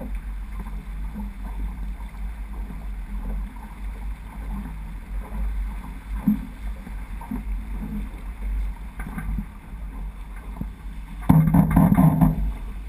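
Wind buffeting a boom-mounted action camera and water rushing along the hull of a J80 sailboat under way. Near the end a louder, rougher burst of noise lasts about a second as the boom swings across during a tack.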